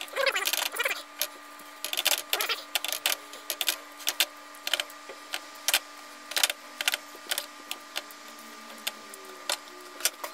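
Knife and fork clicking and scraping against a nonstick skillet while pulling apart cooked pork shoulder, in irregular bursts of short clicks. A steady hum runs underneath.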